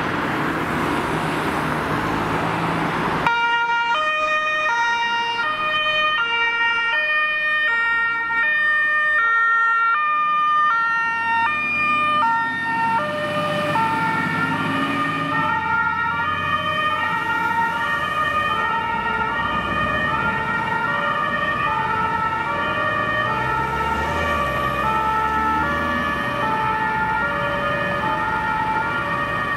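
Two-tone German fire-engine siren (Martinshorn) on a fire service equipment truck responding to an emergency, alternating steadily between two pitches. It cuts in about three seconds in after some road noise, and the truck's engine rumbles underneath it from about twelve seconds in as it passes.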